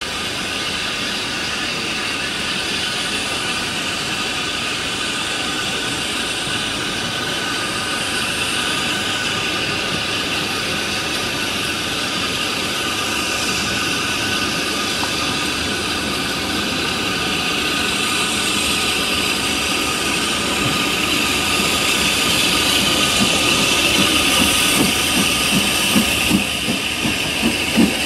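Steam locomotive 90775, a WD Austerity 2-10-0, drifting in slowly with a steady hiss of steam that grows gradually louder. In the last two seconds a regular pulsing of about two beats a second comes in as it nears.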